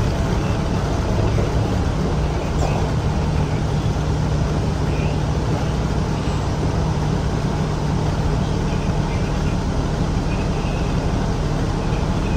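City bus running steadily with engine hum and road noise, a constant low drone throughout.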